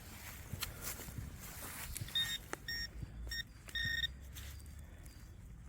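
Metal detector giving short, high, steady target beeps, three of them in the middle, over a low rumble of wind and handling with a few sharp knocks.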